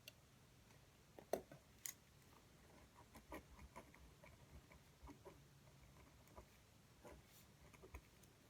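Near silence with faint, irregular small clicks and taps, the two sharpest a little over a second in and just under two seconds in.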